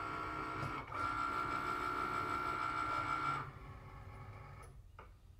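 Cricut cutting machine running, its carriage motors giving a steady electronic whine with a brief break about a second in. About three and a half seconds in it drops to a quieter hum, and a single click comes near the end.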